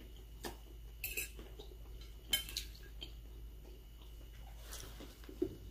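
Cutlery clinking against plates while eating, a handful of light, scattered clinks.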